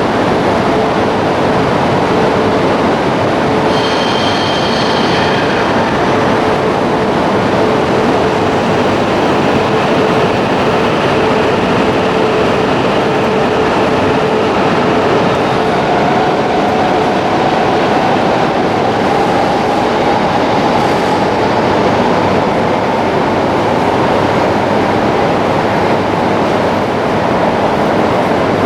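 Shinkansen train running alongside the platform, a loud steady rumble. A brief high squeal comes about four seconds in. In the second half a motor tone slowly rises in pitch as the train picks up speed.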